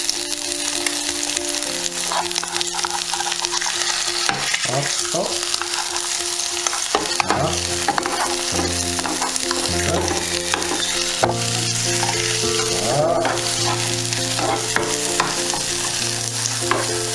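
Egg frying in hot oil in a nonstick frying pan: a steady sizzle with many small crackling pops.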